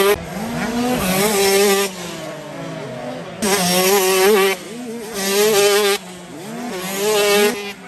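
125cc two-stroke motocross bikes racing, their engines revving hard in four bursts. Each burst rises in pitch and then drops off sharply as the throttle closes.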